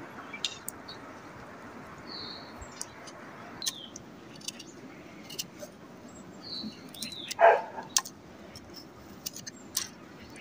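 A dog barks once, loudly, about seven and a half seconds in. Around it are scattered small sharp clicks and a few short high chirps.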